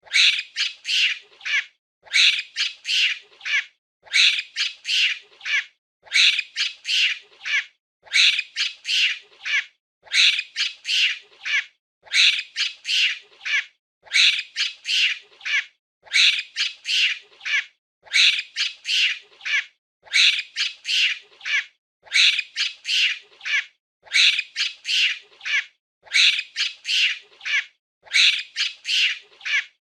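Monkey calling in quick high-pitched bursts, about five calls per burst, with the same burst repeating every two seconds.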